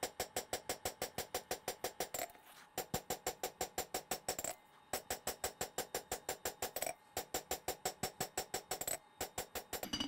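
Rapid hand-hammer blows with the rounded face of a forging hammer on a red-hot Bowie knife blade over the anvil, with the anvil ringing under them. The blows come about six a second in runs of roughly two seconds, with four short pauses. They draw out the low spot of the edge's recurve so the edge comes parallel with the spine.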